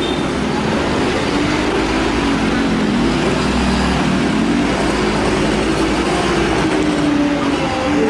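UD Quester concrete mixer truck's diesel engine running steadily under load, its pitch drifting up and down.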